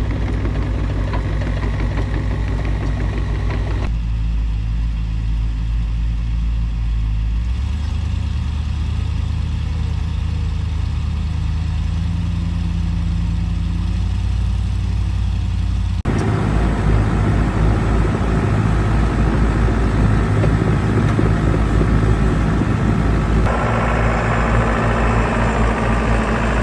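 Diesel engines of a mini excavator and a four-wheel-drive farm tractor running steadily while pulling a hedger truck out of deep mud. The engine sound changes abruptly a few times as separate clips are cut together.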